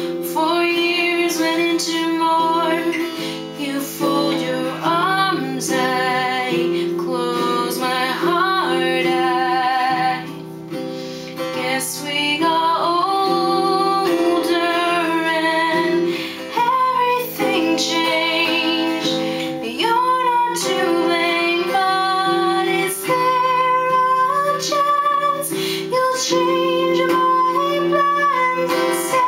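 A woman singing with vibrato to her own strummed acoustic guitar.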